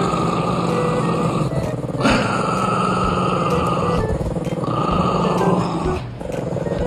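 Two dogs growling at each other over a plush donut toy: long, continuous low growls broken by short pauses about every two seconds.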